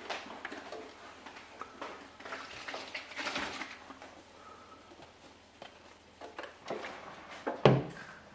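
Light kitchen clatter and small clicks, then a single loud clunk near the end as the hinged air-crisp lid of a Ninja Foodi Max multi-cooker is shut.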